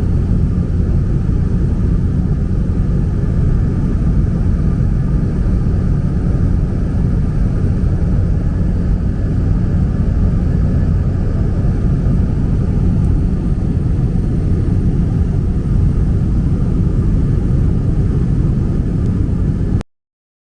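Steady drone of a small propeller plane's engine and propeller heard inside the cabin in level flight. The sound cuts out completely for under a second near the end.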